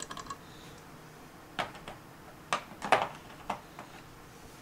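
Sharp metal clicks and clinks, about seven of them, with the loudest a little under three seconds in, as steel sockets are handled and fitted onto a lawn mower blade bolt.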